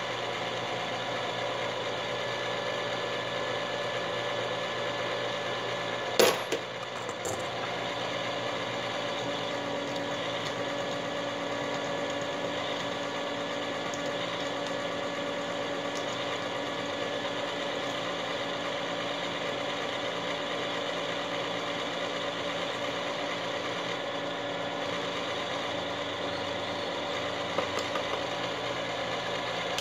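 Frankford Arsenal Platinum Series case prep and trim center running steadily, its electric motor giving a whine of several steady tones while a brass rifle case is held into the trimmer head. A single sharp click comes about six seconds in.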